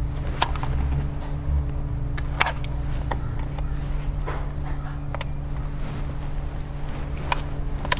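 Small screwdriver tip working the plastic release clips of a cigarette lighter socket in a plastic console trim panel, giving a few irregular light clicks and scrapes over a steady low hum.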